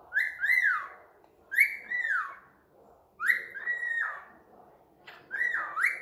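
Cockatiel whistling a tune: four short whistled phrases, each sliding up and then down in pitch.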